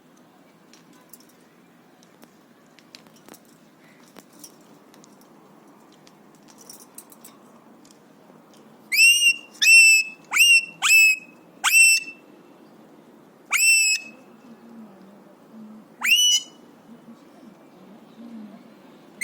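Alexandrine parakeet whistling: seven loud, short whistles starting about nine seconds in, each sweeping sharply upward and ending on a brief held high note.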